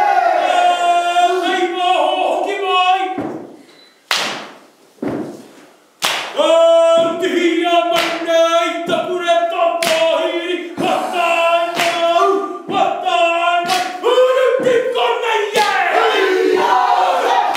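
Māori haka: a group of performers chanting loudly in unison on held notes, punctuated by sharp chest slaps and stamps about once a second. The chant breaks off for a couple of seconds near the start, leaving two lone slaps, then resumes.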